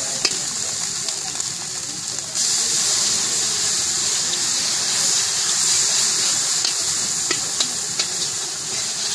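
Batter-coated pieces deep-frying in hot oil in an iron karahi, a steady high sizzle with scattered small crackles. The sizzle grows louder about two seconds in.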